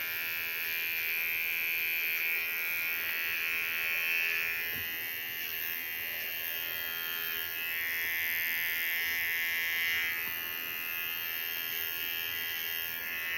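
Small electric pet shaver running with a steady buzz as it skims the fur on a dog's paw.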